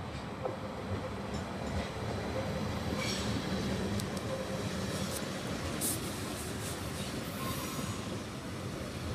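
Stadler FLIRT ETR 170 electric multiple unit passing close by: a steady rumble of wheels on rails, loudest as the cars go past in the middle.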